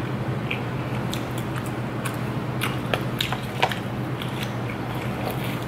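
Close-miked mouth sounds of chewing food, with scattered soft clicks and crackles and one sharper crackle about three and a half seconds in, over a steady low hum.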